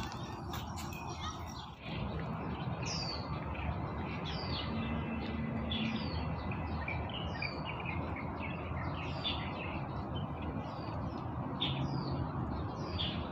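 Birds chirping: many short, high calls that slide downward in pitch, starting a few seconds in and repeating about once a second, over a steady background rush.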